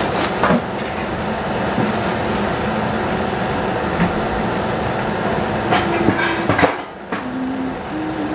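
Steady rush of running tap water while vegetables are washed, with a few knocks and clinks of pots and dishes being handled. The water drops off briefly about seven seconds in, then comes back.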